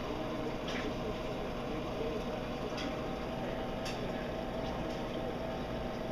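Reef aquarium's water circulation running: a steady hum with water bubbling and gurgling, and a few short splashy hisses.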